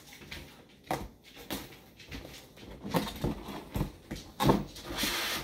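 A cardboard beer advent calendar being opened and a beer can taken out: a run of knocks and taps, then a short rustling scrape near the end.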